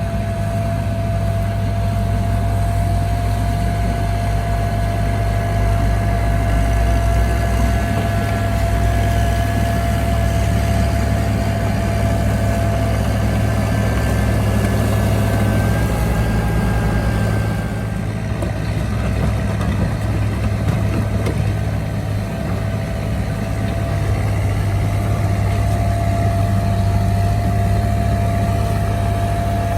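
Heavy diesel engine of earthmoving machinery running steadily, with a steady high-pitched whine over the low engine sound; the engine eases a little past the middle, then picks up again.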